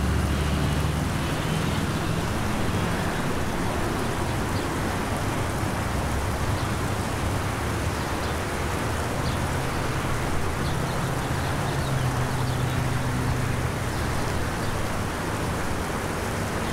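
A steady rushing noise, like water or rain, with low sustained droning tones beneath it that change pitch a few times.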